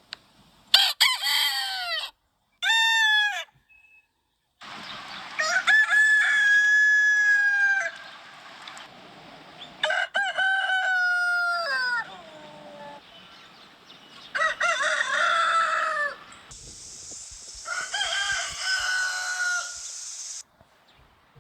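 Roosters crowing: about six separate cock-a-doodle-doo crows one after another, the first two short and one near the middle held long on a steady note.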